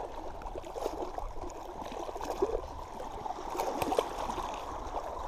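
Small waves lapping and trickling against the rocks at the water's edge, with small splashes about four seconds in.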